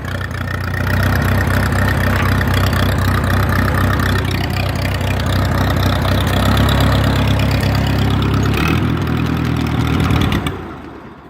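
Massey-Harris 22 tractor engine cranking over steadily on its starter without catching, in a cold engine that won't start; the cranking winds down and stops near the end.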